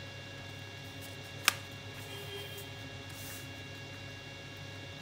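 Square of origami paper being unfolded on a tabletop: one sharp click about a second and a half in and faint paper rustling, over a steady electrical hum.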